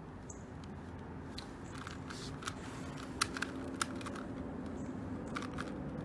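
Plastic 2x2 Rubik's cube clicking as its layers are turned by hand during a solve: irregular clicks, a quick cluster of louder ones near the middle.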